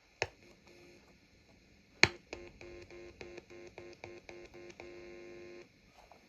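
Two sharp pops as a probe touches the amplifier's circuit, the second one louder. These are followed by a buzzing tone at a steady pitch that cuts in and out about three or four times a second for around three seconds.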